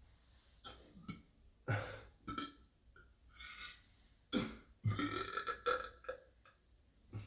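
A person burping on purpose, a series of separate burps: short ones in the first half, then a long, drawn-out burp from about four and a half seconds in that lasts well over a second.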